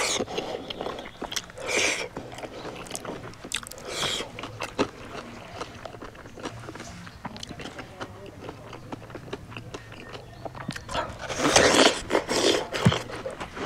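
Close-miked eating sounds: chewing and mouth noises from eating pork and rice, with scattered small clicks and short noisy bursts, and one louder noisy burst of about a second near the end.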